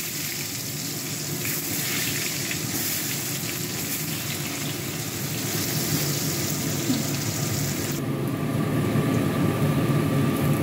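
Potato pieces sizzling as they shallow-fry in hot oil, a steady hiss. The high part of the hiss drops away abruptly about eight seconds in.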